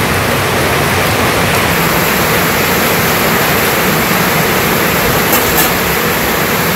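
Heavy rain falling steadily, heard from inside a corrugated-tin kitchen.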